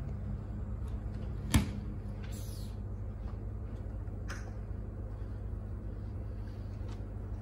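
Wing Chun long pole being swung and thrust: one sharp knock about a second and a half in, a short swish soon after and a fainter click about four seconds in, over a steady low hum.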